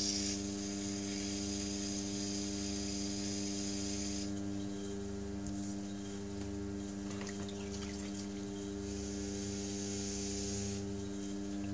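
Electric pottery wheel motor, run from a lathe's speed controller, spinning at a steady speed with a steady electric hum of several tones. A hiss of a rib and then a sponge rubbing on the wet clay comes in strongly for the first few seconds and again near the end.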